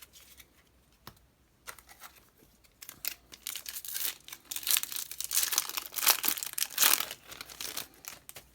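A foil trading-card booster pack wrapper being torn open and crinkled: a few light crackles at first, then a long run of loud crackling tearing in the second half.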